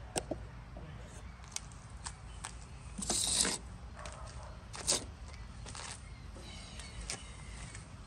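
Handling noises: scattered light clicks and knocks, with a half-second burst of hiss about three seconds in and a sharper click near five seconds.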